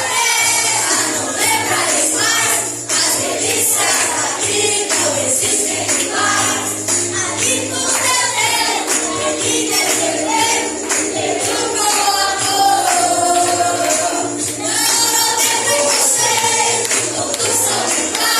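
Voices singing a gospel hymn with a tambourine keeping a steady beat.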